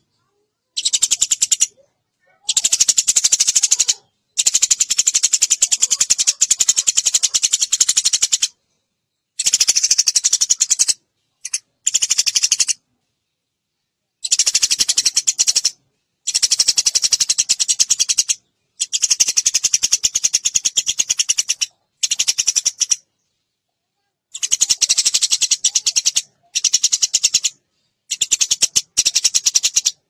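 Eurasian tree sparrow chirping rapidly and continuously in bursts of one to four seconds, each stopping abruptly into a short silence before the next begins.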